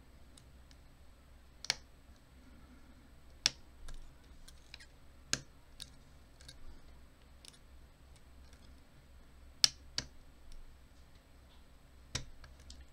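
Pick clicking against the pin tumblers of a brass American Lock 1100 series padlock as it is picked: about six sharp clicks at irregular intervals of a second or two, with fainter ticks between.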